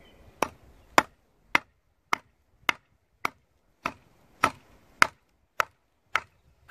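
A piece of wood striking the back of a billhook blade, about two strikes a second, each a sharp knock, driving the blade down into the cut top of a quince stub to split it for a cleft graft. Wood is used instead of a metal hammer so that iron does not strike iron.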